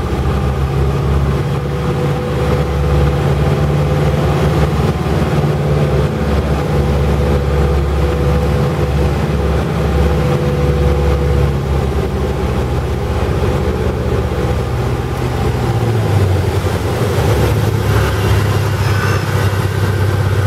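A Cessna 150's four-cylinder Continental O-200 engine and propeller running at reduced approach power, heard from inside the cockpit with airflow noise. The engine note drops lower about three-quarters of the way through, near touchdown.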